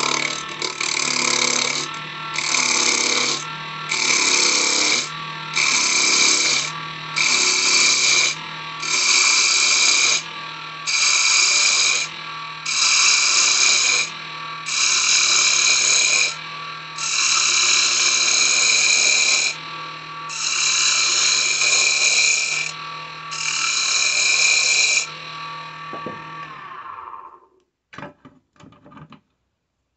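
Wood lathe running with a steady hum while sandpaper held against the spinning cedar cylinder gives about a dozen hissing passes, each about a second long. About 26 seconds in the lathe is switched off and spins down to a stop, followed by a few light clicks.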